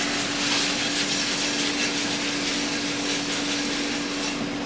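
Bacon frying in a hot pan, a steady sizzle with a constant low hum beneath it.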